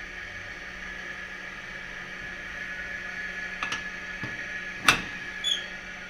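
Daiwa 423S2-EC inverter refrigeration unit running with a steady hum and a constant high whine, showing it is working. Near the end come a few sharp clicks, one loud, and a brief high chirp.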